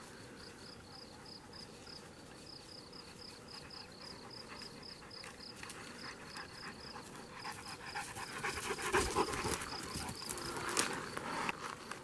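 A steady series of short, high insect chirps, about four a second. From about eight seconds in, louder rustling and brushing through tall grass comes close, with a dog panting.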